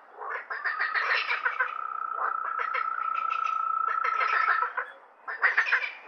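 Frogs calling in a chorus: bursts of fast rattling croaks, with a steady high note held from about a second in until nearly five seconds. There is a brief lull just before the croaking starts up again.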